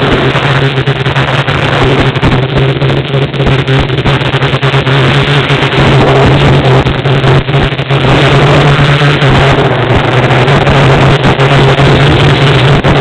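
Quadcopter's electric motors and propellers buzzing steadily in flight, a loud, constant hum heard from an onboard camera.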